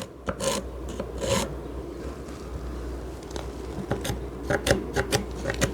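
Wooden boards scraping and rubbing against each other, with scattered light knocks, as a solid-wood chair seat board is handled and lined up against the old one.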